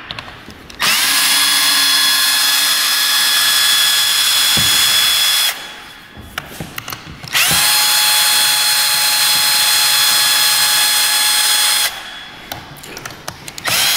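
Milwaukee cordless electric screwdriver with a Phillips bit running at a steady pitch, backing out screws from the cover plate of a lithium e-bike battery. It runs twice for about four to five seconds each, with a few short clicks in the pause between, and starts a third run at the very end.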